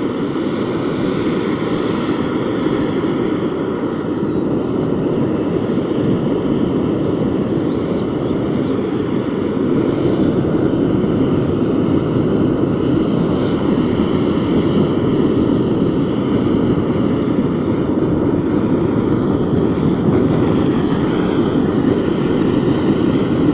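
Fire burning with a loud, steady rushing noise that keeps an even level throughout, with faint steady tones above it.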